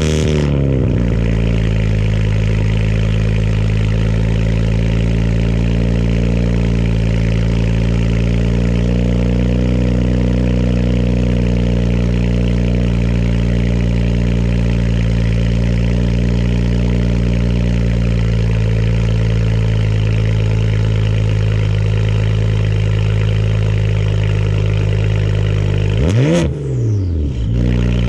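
A 2010 BMW 335i's twin-turbo straight-six, just cold-started, idling steadily through a Cherry Bomb 12-inch glasspack muffler, with one quick rev near the end.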